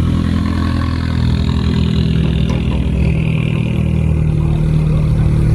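Car engine running loud and close at a fairly steady low speed, with no clear rev.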